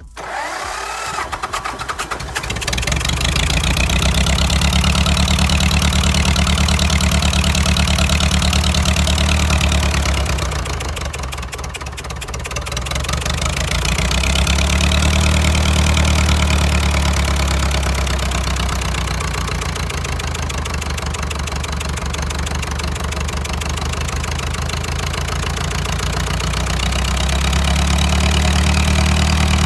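Diesel engine, just after its injection pump has been set, catching right at the start and then running. Its speed rises and falls: high for several seconds, dipping about twelve seconds in, rising briefly, settling lower, then rising again near the end.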